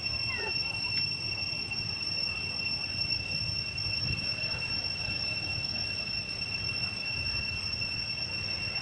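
Steady high-pitched insect drone, one unbroken whine with no pauses, over a low outdoor rumble. A brief falling squeak comes about half a second in.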